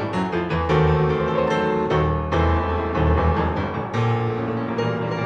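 Piano music, with many struck notes over a low bass line.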